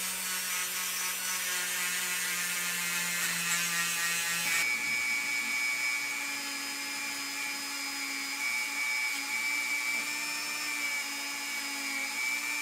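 Handheld rotary tool running steadily with a small buffing wheel, polishing zinc-plated diecast metal with metal polish. Its steady whine shifts to a higher hum about four and a half seconds in, as a second rotary tool takes over.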